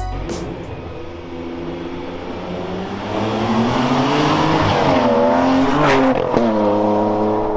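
Ferrari 612 Scaglietti's V12 engine through a Quicksilver aftermarket exhaust, revving: the note climbs from about three seconds in, dips briefly near six seconds, then holds steady.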